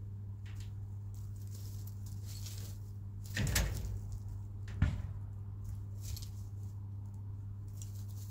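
Chickens moving about in their coop: scattered light rustling and scratching, a louder scrape about three and a half seconds in and a single sharp knock a second later, over a steady low hum. No clucking.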